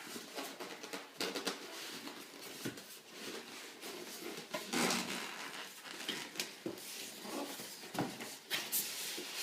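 Packaging rustling and crinkling as it is handled, with many small clicks and knocks of parts being lifted and set down.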